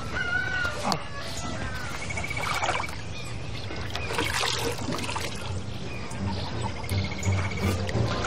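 Water splashing and dribbling in short bursts as hands scoop it from a basin and splash it onto a face. Background music with a low pulsing beat runs underneath, and small birds chirp and trill.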